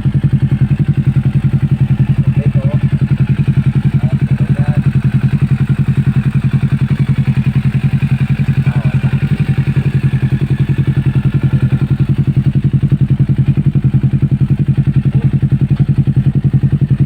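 Kawasaki Ninja 650's parallel-twin engine idling steadily through an aftermarket Daeng 4 muffler, with an even, rapid exhaust pulse.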